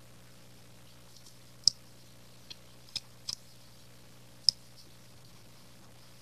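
Close-miked eating sounds from a mouth full of noodles: a handful of short, sharp wet clicks and lip smacks, irregularly spaced, the loudest one about one and a half seconds in and another about three quarters of the way through.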